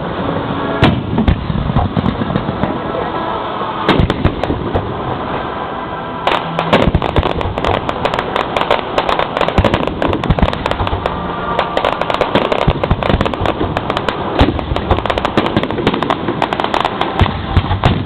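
Aerial fireworks shells launching and bursting at close range: a steady run of booms and crackles that thickens about six seconds in into a rapid barrage.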